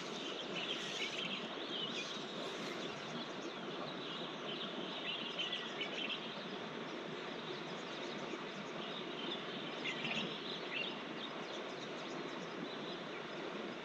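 Steady rush of a small mountain stream, with birds chirping over it several times.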